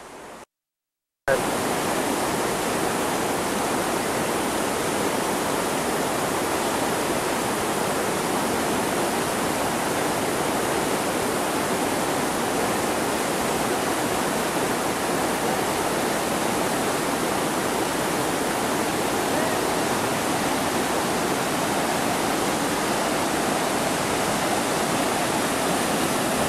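River rapids rushing, a loud, steady noise of churning whitewater that starts suddenly after a brief moment of silence about a second in.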